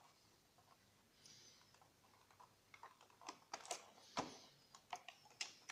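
Irregular clicks and taps of a cardboard product box being handled and shifted on a tabletop. They begin about halfway in, after a near-silent stretch, and a few knocks stand out louder than the rest.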